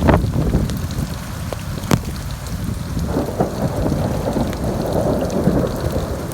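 Thunderstorm with rain falling: a sharp crack right at the start and another about two seconds in over a low rumble, then a denser crackling rumble from about halfway.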